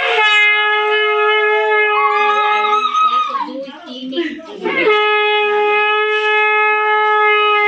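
Conch shell (shankha) blown in two long, steady blasts. The first lasts about three seconds and the second starts about five seconds in and holds to the end. It is the auspicious call of a Hindu ritual.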